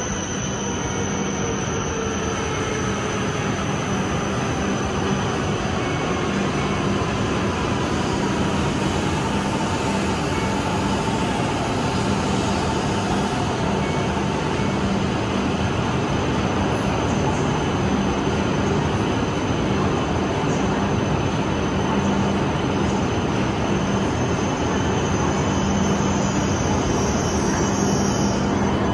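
E7-series Shinkansen pulling in along the platform and slowing to a stop: steady wheel and running noise with a faint motor whine that falls in pitch as the train brakes.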